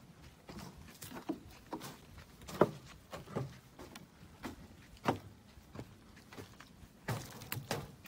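Footsteps of a hiker walking a woodland trail: a series of short, uneven steps about one or two a second, one sharper step about two and a half seconds in.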